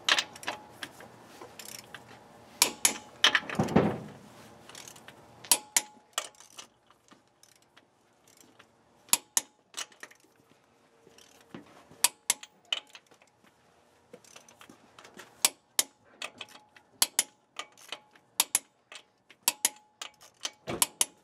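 Torque wrench tightening a truck's lug nuts to 140 foot-pounds: sharp metallic clicks, often in close pairs, repeating lug after lug. A brief duller thud about four seconds in.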